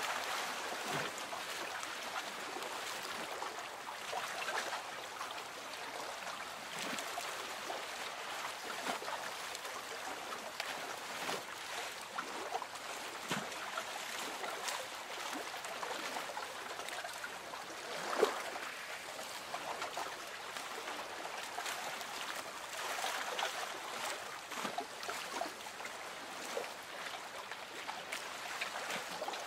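Lake water lapping gently against a small boat's hull: a steady patter of small irregular splashes and trickles, with one slightly louder splash about eighteen seconds in.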